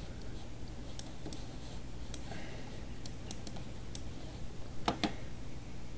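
Scattered clicks from a computer mouse and keyboard being worked, with two louder clicks in quick succession about five seconds in, over a low steady hum.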